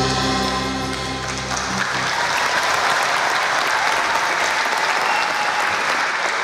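The orchestra's last held chord rings on and stops about two seconds in, then audience applause takes over.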